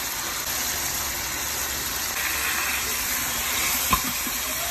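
Meat cooking in hot liquid in a wok, a steady sizzling hiss, with a single sharp knock about four seconds in.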